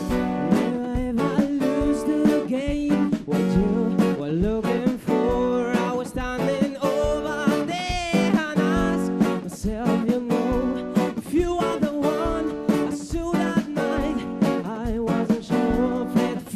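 Live band music: rhythmically strummed guitar chords with a sung melody over them.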